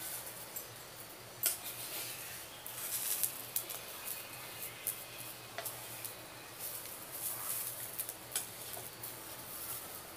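Wooden spatula scraping and tapping on an iron tawa while a thin batter crepe is folded over stuffed bread, with scattered soft clicks and knocks over a faint steady hiss.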